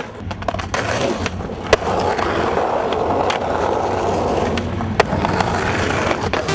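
Skateboard wheels rolling over street asphalt in a steady roll, with sharp clacks of the board about a second and a half in and again about five seconds in.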